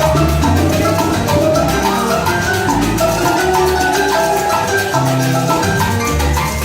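Salsa band playing live: a busy line of short, quick melodic notes over bass notes and steady percussion.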